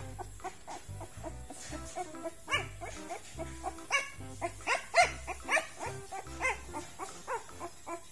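Young Thai ridgeback puppy whining and squealing in a run of short high cries, loudest about halfway through, over background music with a steady beat.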